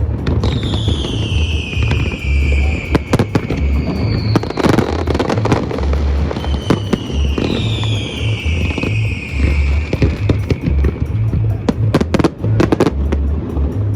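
Aerial fireworks going off in quick succession: sharp bangs and crackling reports, with two long whistling tones that fall slowly in pitch. Music with a heavy bass beat plays underneath.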